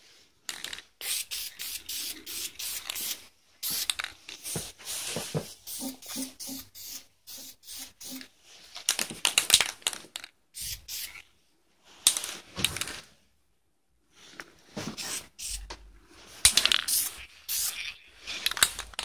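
Aerosol can of black spray paint hissing in repeated short bursts, with pauses between them.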